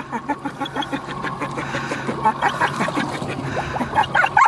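A dog whining and yipping excitedly, many short cries in quick succession, over a steady low hum.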